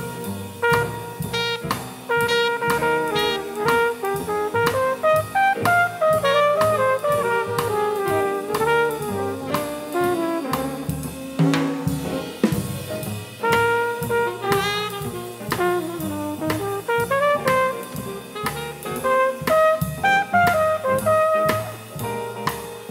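Live small-group jazz: trumpet and saxophone playing melodic lines over piano, double bass and a drum kit keeping a steady swing beat.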